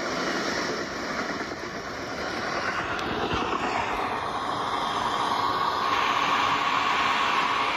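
Battery-powered LEGO train running along plastic LEGO track: a steady motor whine over the rattle of wheels on the track, growing louder near the end as the train comes closer.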